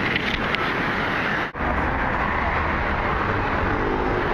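Wind and surf noise on a beach. A sudden cut comes about a second and a half in, then steady road rumble and wind noise from riding in a moving vehicle.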